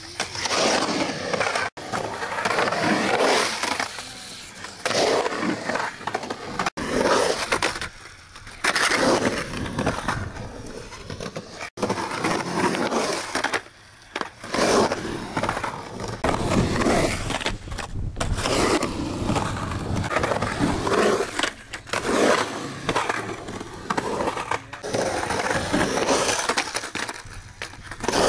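Skateboard wheels rolling through a concrete bowl and trucks grinding along the bowl's coping, in a run of short clips that cut off sharply several times.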